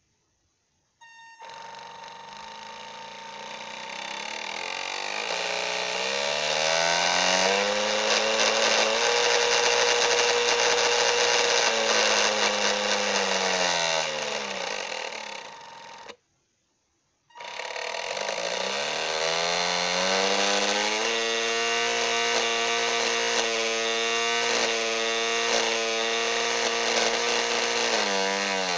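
Small electric drive motor of an RC boat turning the propeller shaft inside the plastic hull. Its whine rises as it speeds up, holds steady for a few seconds, then falls away as it slows. After a brief silence it spins up again and runs at speed until it slows near the end.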